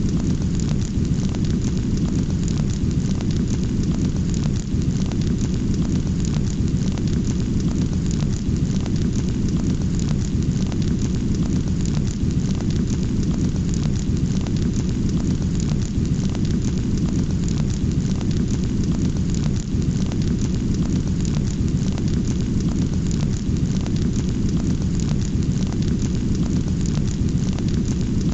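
Raging fire sound effect: a steady low roar of flames with dense, continuous crackling.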